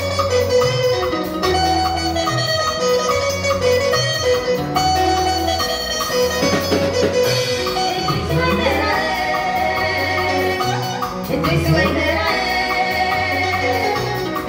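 Live band playing, with a steady bass line, keyboard and drums, and a woman singing into the microphone through the middle of the passage.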